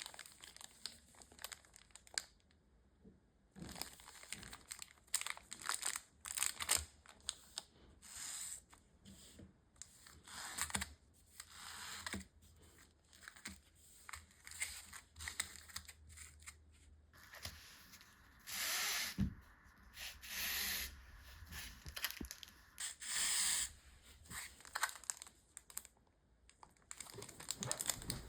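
Foil Pokémon booster pack wrapper being torn open and crinkled by hand: many short crinkling rustles, with a few longer tearing strokes of about a second each about two-thirds of the way through.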